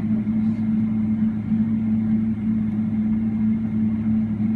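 Cabin noise of a taxiing Boeing 777-300ER: the steady low drone and hum of its GE90-115B turbofans at taxi power, heard through the fuselage.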